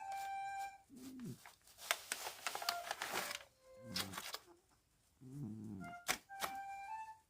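A Scottish Fold cat snoring, with low rasping breaths and a hissing stretch in the middle, under background music of held notes that drops out midway and comes back near the end.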